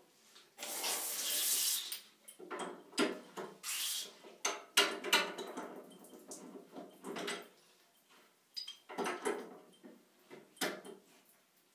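Pliers clinking and scraping on the brass fittings of a laundry-tub faucet as its supply connections are tightened, a string of short metallic clicks and rattles. Two short hissing rushes come through, the first about half a second in and the second near four seconds.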